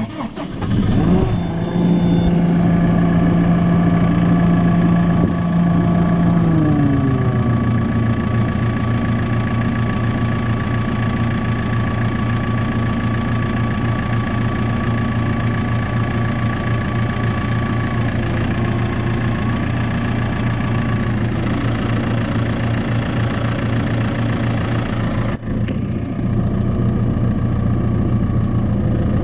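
Diesel engine of a JCB 541-70 telehandler starting about a second in, running at a fast idle, then its pitch drops as it settles into a steady lower idle after about seven seconds.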